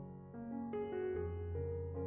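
Background music: gentle piano notes.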